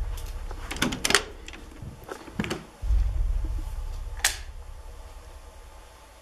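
Deep bass booms of a horror soundtrack, one about three seconds in and another at the very end, each dying away slowly. Between them, sharp clicks and knocks of a door handle and a door.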